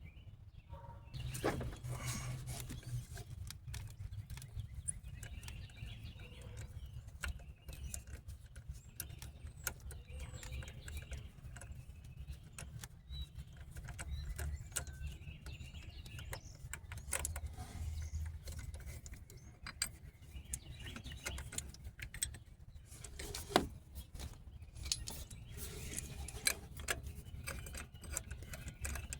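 Hand ratchet clicking and steel tools clinking while 12 mm bolts are loosened and removed, with many short, irregular clicks over a low steady hum.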